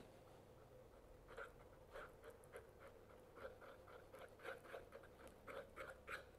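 Faint scraping strokes of a mixing stick stirring two-part Araldite epoxy resin on a scrap of wood, a couple of strokes a second, starting about a second in.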